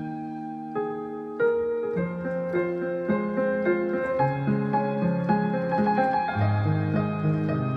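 Piano playing a slow melody over held chords, with a fuller chord struck about a second and a half in and notes following at an even, unhurried pace.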